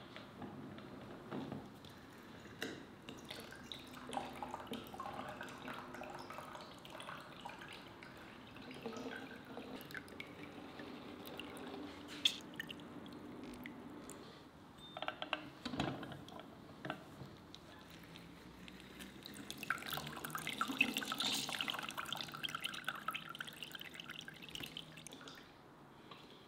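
Fresh orange juice dripping and trickling from a manual lever-arm citrus press into a plastic measuring jug, with scattered small clicks and knocks from the press as oranges are squeezed. It grows louder for a few seconds after the twentieth second.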